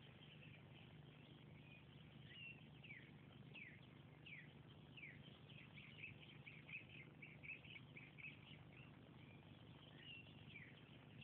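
Faint birds chirping: short falling chirps repeating every half second or so, coming thicker in the middle, over a faint steady low hum.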